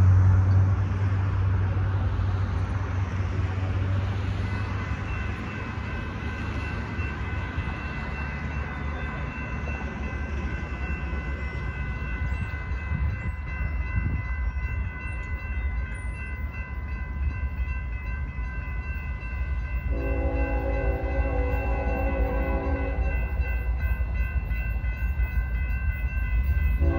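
Grade-crossing warning bell ringing steadily over a low rumble. About twenty seconds in, the approaching lead locomotive of a Union Pacific freight sounds its multi-note air horn in one long blast of about three seconds, and it starts blowing again right at the end.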